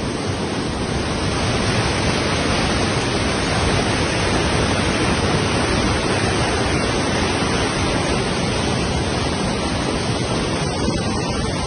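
Swollen, muddy river in flood rushing past: a steady, full rush of turbulent water.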